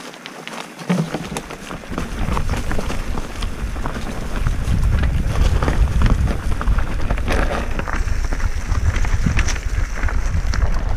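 Wind buffeting the microphone of a mountain bike rider's camera during a descent. It picks up about a second in and grows louder past the middle, with frequent knocks and rattles of the bike over a rough trail.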